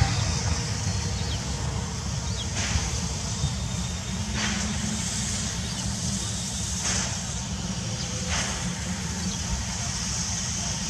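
JNR Class C11 steam tank locomotive (C11 325) hissing steam, with four sharp exhaust chuffs a couple of seconds apart, over a steady low rumble.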